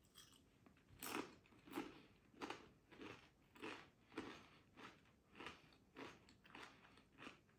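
Doritos tortilla chips, Tangy Pickle and Cool Ranch, being chewed with the mouth closed: faint, steady crunching, about one crunch every 0.6 seconds, starting about a second in.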